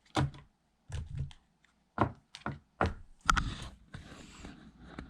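Several light knocks and clacks of small plastic doll furniture being picked up and set down, followed near the end by about a second of rustling and scraping as the pieces are handled.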